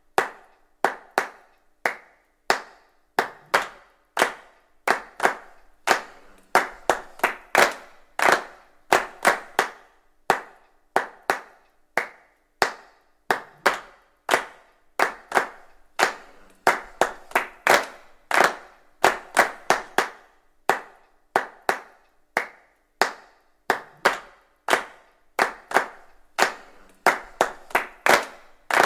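A long series of sharp knocks, roughly two a second at an uneven pace, each one short and fading quickly.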